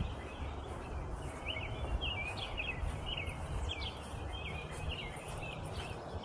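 Songbirds singing, with short chirps and trills repeating every half second or so, over a steady low rumble.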